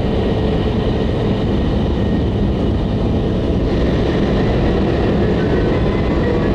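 Tohoku Shinkansen train running in to a station stop: a steady low rumble with faint higher tones above it.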